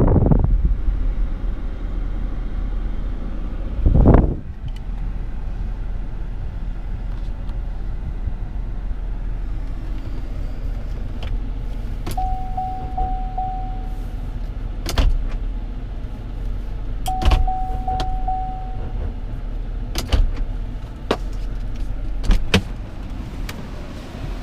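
Inside a 2016 Chevrolet Suburban's cabin: a steady low rumble, with a loud whoosh about four seconds in. From midway there are scattered clicks of dash buttons and controls, and two electronic beeps, each held about a second and a half.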